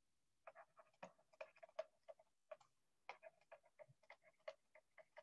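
Stylus tapping on a tablet while handwriting: a run of light, quick, irregular clicks, several a second.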